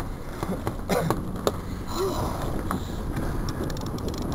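Baitcasting reel being cranked to bring in a heavy fish, with a few scattered clicks and knocks over a steady low rumble.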